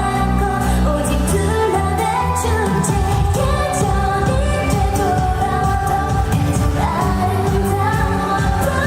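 K-pop song with female vocals singing over a pop backing track with a steady beat.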